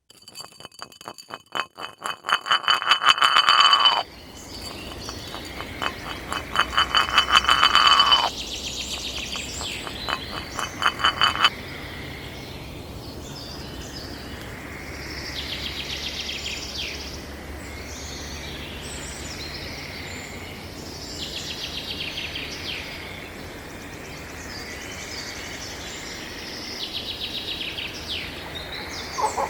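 Three loud, rapid trilled animal calls, each lasting a few seconds, in the first dozen seconds. Softer scattered chirps follow in short clusters over a steady low outdoor background hum.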